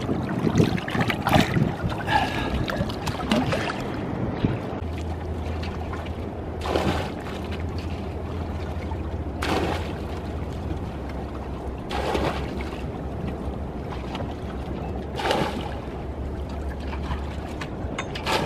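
Water being bailed out of an inflatable dinghy with a bucket: a splash about every three seconds as each bucketful is thrown over the side, over a steady low hum.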